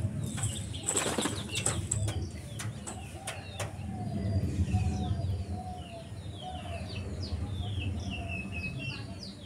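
A pigeon's wings flapping in a short flurry about half a second to two seconds in, followed by a few sharp wing claps, as a pigeon takes off or lands on the roof. Small birds keep up quick, falling chirps throughout.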